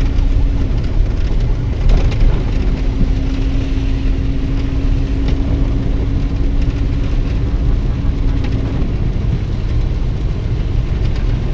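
Car driving in heavy rain, heard from inside the cabin: a steady low rumble of the engine and tyres on the wet road, with rain on the car. A steady hum runs through the middle and fades out near the end.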